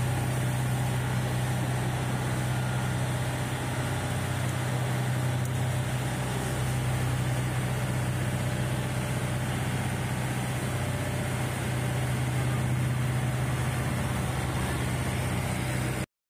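Motorboat's engine running steadily with a low hum, heard on board, over the rush of water and wind; it cuts off abruptly just before the end.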